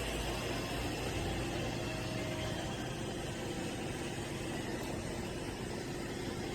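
Roomba robot vacuum running with a steady motor whir and hum.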